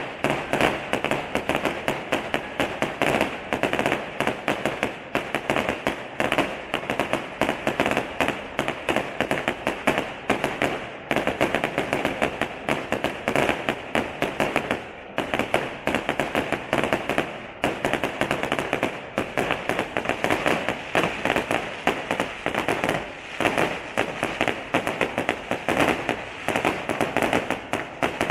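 Aerial fireworks going off in a dense, rapid barrage of bangs and crackles, many reports a second with hardly a break.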